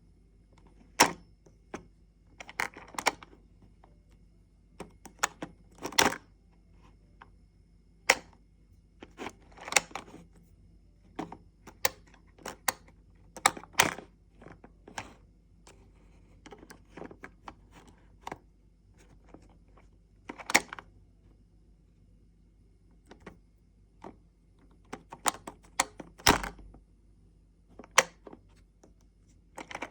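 Irregular plastic clicks and clacks of toys being handled and set down, some in quick clusters, with a heavier knock about 26 seconds in.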